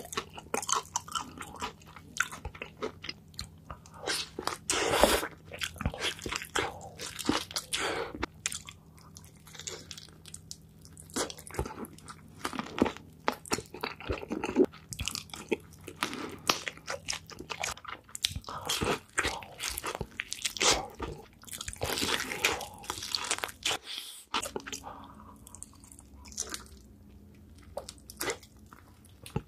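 Close-miked eating of sauce-glazed fried chicken: crunchy bites through the coated crust and wet chewing, in irregular clusters of crackles.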